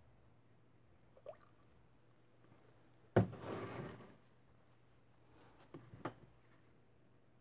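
Kitchen handling noise: a sharp knock followed by about a second of scraping, then two light taps, as plastic soap pitchers and utensils are moved on the counter.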